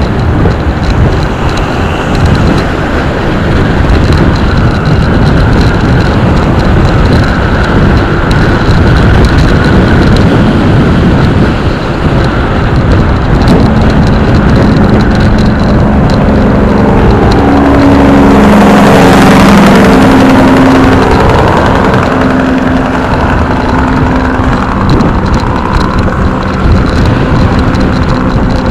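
Motorcycle riding at road speed: the engine's running drone under heavy wind noise on the microphone. Steady engine tones come through from about halfway, with a louder swell about two-thirds of the way in.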